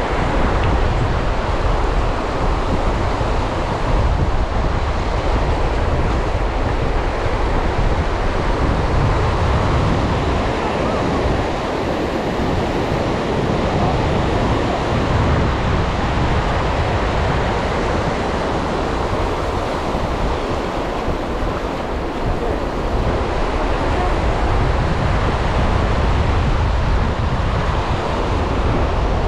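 Sea surf washing onto a beach, with wind rumbling on the microphone.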